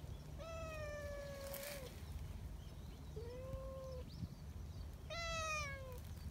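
A cat meowing three times in long, drawn-out calls, the first and last sliding down in pitch.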